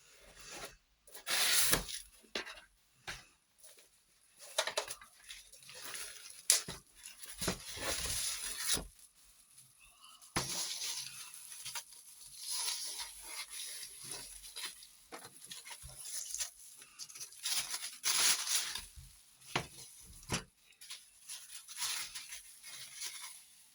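Packaging being handled and unwrapped by hand: irregular rustling, crinkling and tearing in short bursts with brief pauses between.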